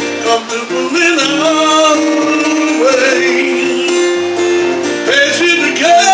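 A man singing live to his own strummed acoustic guitar, his voice sliding upward on one note about halfway through.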